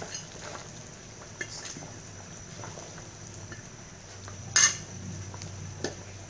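A ladle stirring a thick chicken-and-potato curry in a metal pot: soft scrapes and light clicks, with one loud metal clank against the pot about four and a half seconds in. A low steady hum runs underneath.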